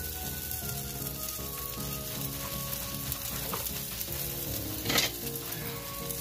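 Vegetable stir-fry and a vegetable fritter sizzling steadily in two cast iron skillets on an electric stove, with a sharp clack about five seconds in.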